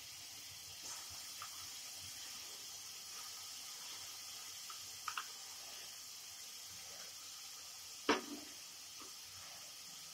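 Faint, steady sizzle of onion-garlic paste cooking in hot oil in a wok. A couple of light clicks come about five seconds in, and a sharper knock of a utensil about eight seconds in.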